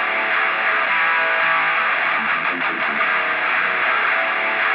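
Intro music: a held, distorted electric guitar chord ringing steadily.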